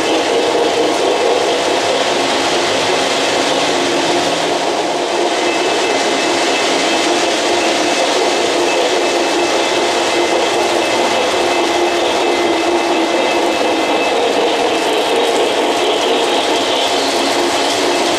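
O-gauge model trains running on three-rail track: a steady rolling noise of metal wheels on the rails and the trains' motors.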